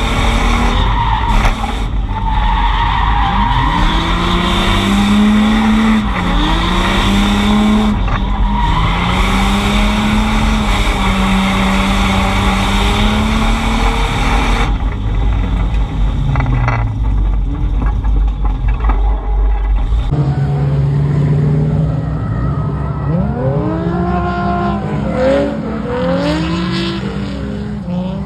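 Drift car engine revving up and down hard with tires skidding and squealing through long slides. The sound changes abruptly about halfway through and again a few seconds later.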